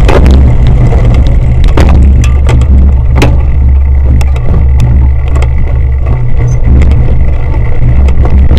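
Loud, steady low rumble of wind and ride vibration on an action camera mounted on a racing cyclocross bike. Scattered rattles and knocks come through as the bike runs over rough grass and dirt.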